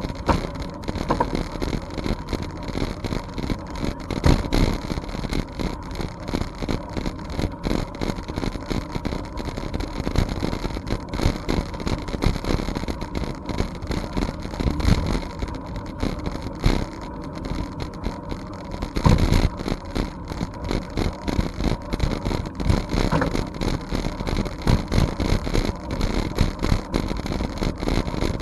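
Wind rushing over the microphone of a bicycle-mounted camera while riding, a steady gusting rumble with frequent small rattles and knocks from the bike rolling over the trail surface.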